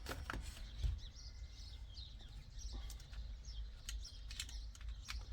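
A few light clicks and taps of plastic steering-wheel switch parts being handled and pressed into place, with faint bird chirps in the background.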